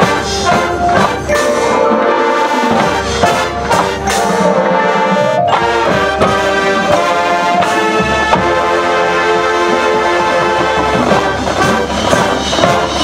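High school marching band playing, its brass section holding full sustained chords over percussion, moving to a new chord about halfway through.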